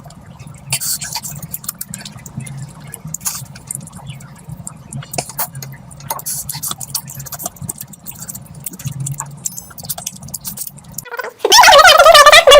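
Close-miked eating sounds: irregular wet chewing clicks and smacks, with small clinks, over a low steady hum. Near the end a much louder warbling, pitched sound cuts in abruptly.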